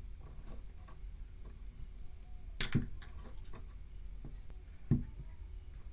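Objects being handled on a hard surface: scattered light clicks and taps, with sharper knocks about two and a half seconds in and again near the end, over a steady low hum.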